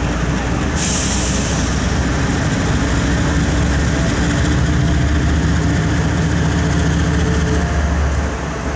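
BNSF diesel freight locomotives running with a steady low engine rumble, with a short hiss about a second in.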